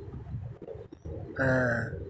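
A man's voice humming a single low, steady note for about half a second, starting about a second and a half in, after a short pause; the lead-in to a sung psalm line.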